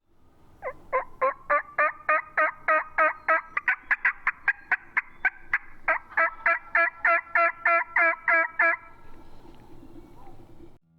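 Turkey yelping: a long, even run of about 28 yelps, three or four a second, that stops about nine seconds in.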